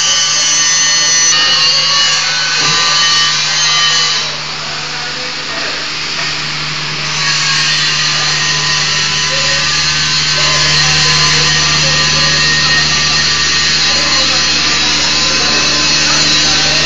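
Angle grinder grinding steel: a steady high hiss over a motor hum, easing off for a few seconds about four seconds in.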